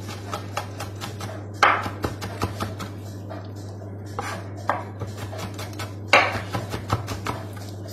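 Kitchen knife chopping garlic on a plastic cutting board: quick, uneven taps of the blade with a few louder knocks, over a steady low hum.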